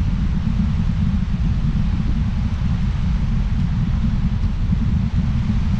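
Wind buffeting the microphone: a steady low rumble with a fainter hiss above it.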